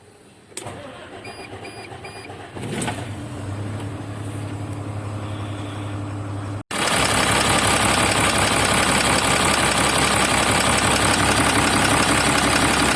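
Cummins 6ISBe six-cylinder diesel in a KamAZ truck running and misfiring, a fault the owner traces to a knocking injector on cylinder 5. A few short beeps sound early on, and after a brief break about seven seconds in the engine is much louder.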